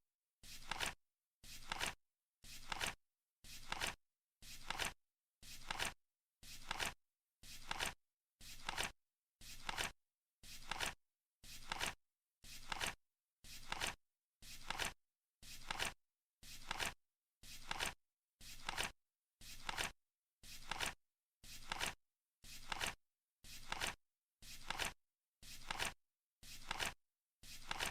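Flip clock timer's ticking sound effect: one short rasping flip every second, each swelling briefly and cutting off sharply, as the countdown runs.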